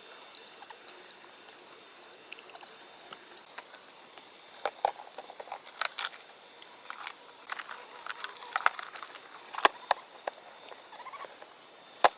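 Irregular light knocks and clicks, sparse at first and more frequent in the second half, over a faint steady hiss, with a few brief high chirps near the end.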